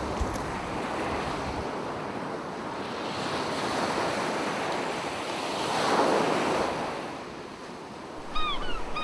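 Ocean surf washing on a beach, with wind on the microphone; a wave swells and breaks loudest about six seconds in. Near the end a bird calls a few times.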